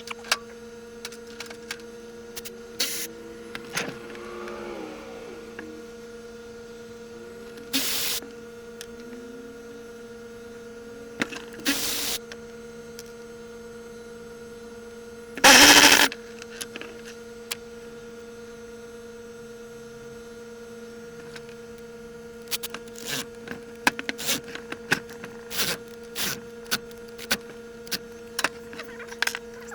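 A steady electrical hum with scattered clicks and knocks, and one louder clatter about halfway through.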